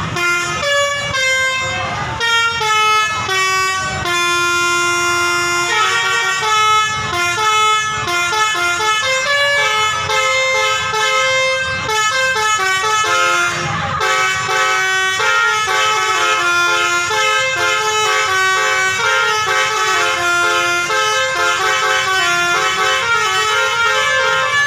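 Bus 'telolet' multi-tone air horn playing a tune, its notes stepping quickly up and down in pitch without a break.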